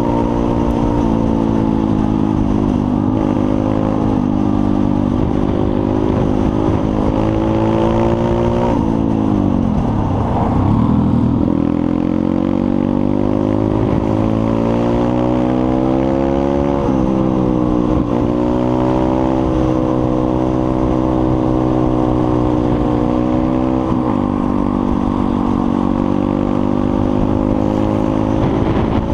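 Pit bike engine running under way on the road, close to the microphone. About a third of the way in the engine note drops sharply as the throttle closes, then climbs back in rising sweeps with a step down between them as the bike accelerates through the gears, before settling to a steady cruise.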